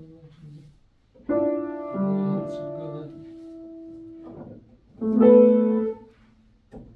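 Background music: slow piano notes held and left to ring, with a new chord about a second in and another about five seconds in.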